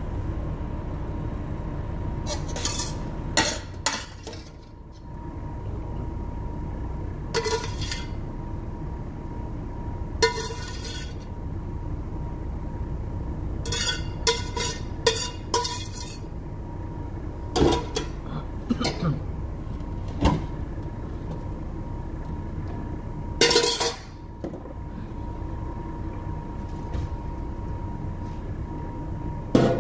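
Metal cookware clinking and knocking: a spoon and a steel pot striking a metal baking pan a dozen or so times, some in quick clusters. Under it runs a steady low machinery hum with a faint high tone.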